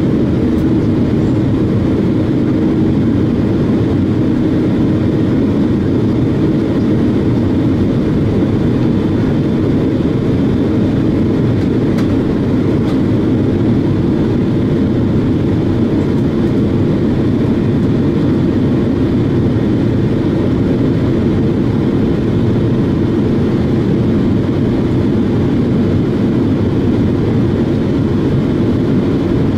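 Steady cabin noise inside a Boeing 777 airliner on descent: the engines' drone and rushing airflow, with a low steady hum and no change throughout.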